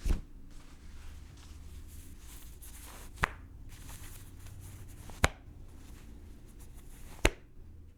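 Clothing fabric rustling and rubbing, with four sharp snaps of the cloth about every two seconds.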